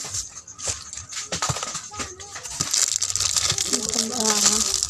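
Plastic snack wrappers and packets rustling and crinkling as a hand digs through a box of store goods, with scattered clicks of packages knocking together. A short stretch of background voice comes in about four seconds in.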